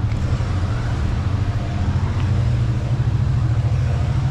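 Road traffic close by: vehicle engines running with a steady low hum.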